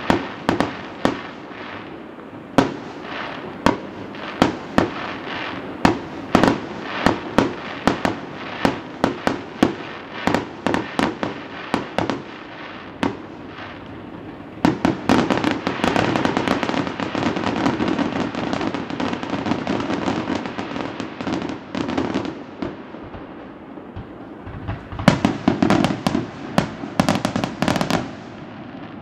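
Aerial fireworks shells bursting in the sky: a rapid series of sharp bangs, then from about halfway a dense run of overlapping pops lasting several seconds, and near the end another quick flurry of bangs.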